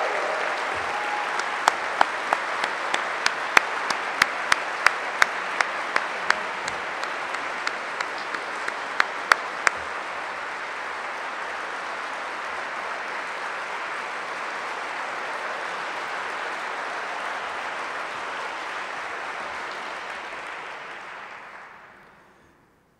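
Audience applauding steadily, with a run of loud, evenly spaced single claps close by standing out over the first ten seconds; the applause dies away near the end.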